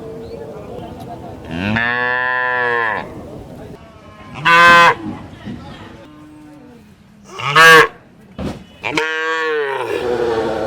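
Cattle mooing: a long low moo, two short, loud, higher-pitched calls, then another long moo near the end. A brief knock comes between the last two calls.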